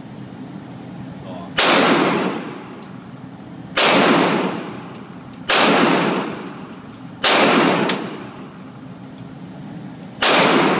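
M249 SAW light machine gun, firing 5.56 mm from its bipod, in five short bursts of automatic fire, each cut off after about half a second and echoing in the enclosed range.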